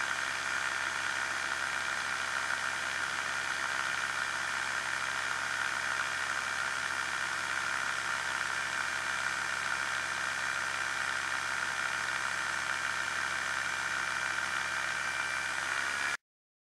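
Challenger II ultralight's pusher engine and propeller running steadily in flight. The sound cuts off abruptly near the end.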